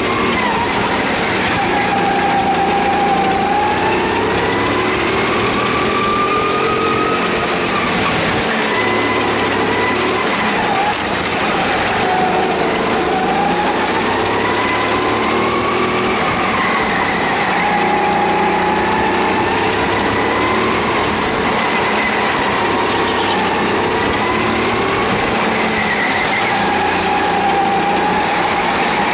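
Go-kart engine heard on board, loud and continuous, its pitch rising and falling every few seconds as the kart accelerates out of corners and slows for the next.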